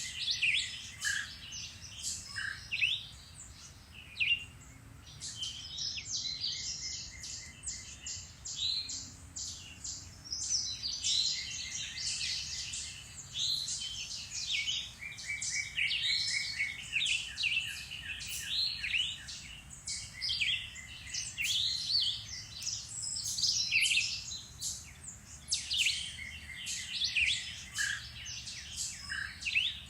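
Several woodland birds singing and calling at once: a dense, continuous chorus of overlapping chirps, trills and short whistled phrases.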